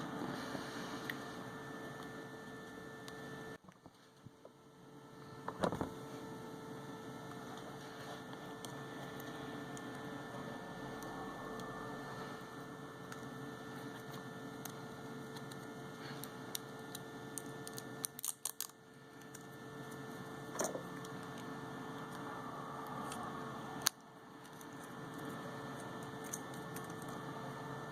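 Steady electrical hum with a faint constant tone, broken by a few scattered small clicks and taps from handling the phone.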